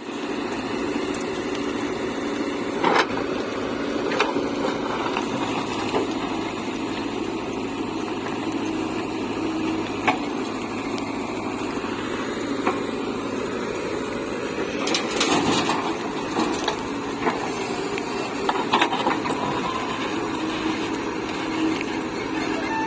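Diesel engine of a JCB 3DX backhoe loader running steadily while it works, with sharp knocks and clanks now and then, busiest a little after the middle.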